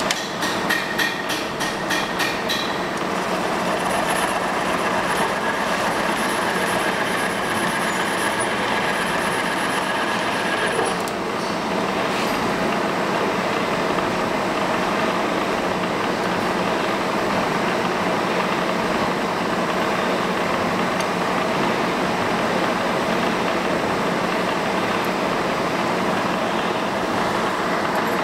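TM807A cylinder boring and honing machine running with a steady mechanical whir and rattle. A quick run of clicks comes in the first couple of seconds, and a thin high whine from about four to eleven seconds in.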